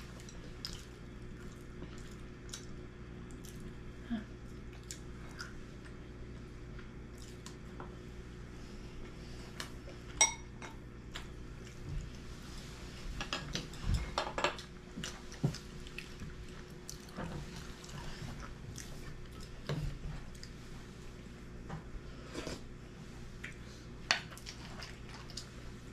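Tableware clinking during a meal: chopsticks and bowls giving scattered light taps and clicks, the sharpest about ten seconds in and a quick run of them around the middle, over a steady low hum.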